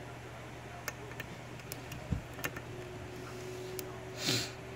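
Dimple pick working the pins of a six-pin Corbin dimple lock cylinder under tension: scattered light clicks, a low knock about two seconds in, and a short hissing rasp near the end, the loudest sound, over a steady low hum.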